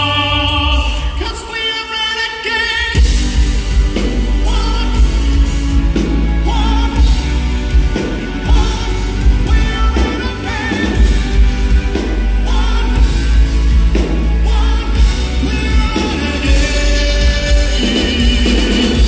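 Live classical-crossover rock performance: a male tenor holds a long sung note with vibrato over sparse backing, then about three seconds in the full band comes in with heavy bass and steady drum hits under his singing.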